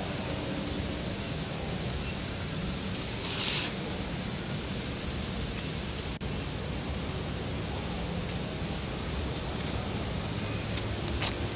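Steady hiss and low hum, with a thin, high, pulsing tone throughout and a short rustle about three and a half seconds in.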